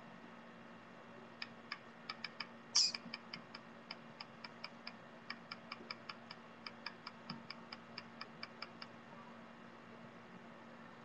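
Faint, rapid light clicks of a computer being operated, about four a second, as lecture slides are paged through, with one louder brief scraping burst about three seconds in.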